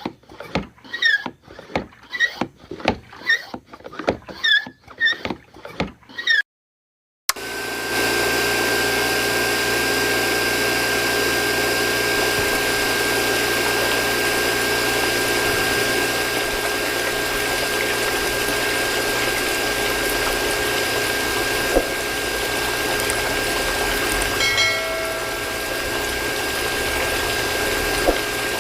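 Music with a rhythmic beat for the first few seconds, then after a brief silence a small DC-motor mini water pump starts up and runs steadily, with a constant high whine over the rush and splash of water.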